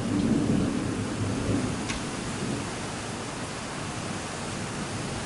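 Steady hiss of light rain, with a low rumble of distant thunder in the first second or two that fades out.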